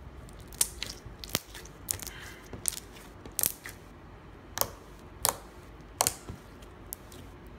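Glitter-glue slime being poked and pressed with fingers, giving sharp, irregular clicky pops, roughly one or two a second.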